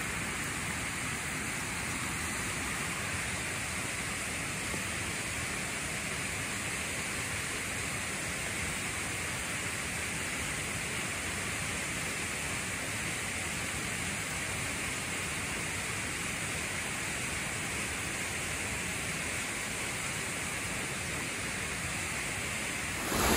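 Steady, even rush of creek water running down a steep channel, unchanging throughout.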